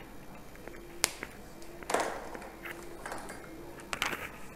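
Whiteboard marker being handled and used on the board: a sharp click about a second in, a short scratchy stroke of marker on whiteboard around two seconds, and a few more light clicks and scrapes near the end.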